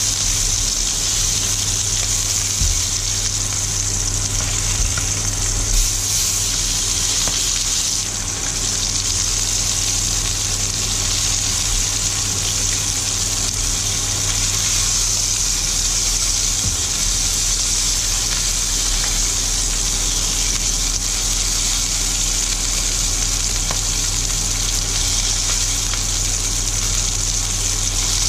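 Marinated porterhouse steaks sizzling steadily as they fry in a non-stick pan, with a steady low hum underneath.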